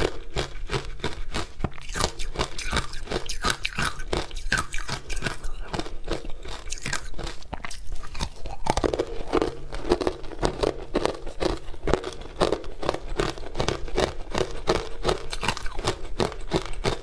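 Powdery ice dusted with matcha powder being bitten and chewed: a continuous run of crisp crunches, with a fresh bite about nine seconds in followed by quick, rhythmic crunching.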